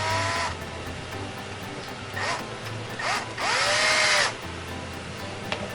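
Power drill on its lowest setting driving screws into an RC truck chassis, in short bursts of the motor spinning up: one at the start, two brief blips about two and three seconds in, and a longer run of about a second near the four-second mark.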